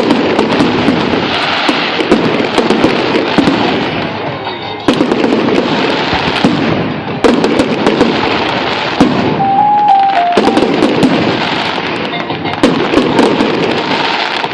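Aerial fireworks bursting and crackling in rapid, overlapping succession, with many sharp bangs and pops.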